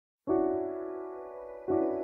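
Opening of a Hindi love song: electric piano chords, the first struck about a quarter of a second in and the second near the end, each ringing and slowly fading.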